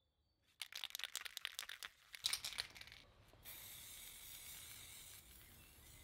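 Edding permanent spray aerosol can shaken hard, its mixing ball rattling rapidly for about two seconds, then a steady hiss as it sprays.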